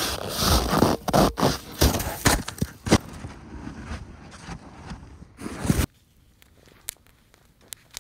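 Snow shovel scraping and chopping packed snow, with loose snow crunching and pouring down in a string of sharp strokes, loudest in the first few seconds. The scraping stops abruptly about six seconds in, leaving only a few faint ticks.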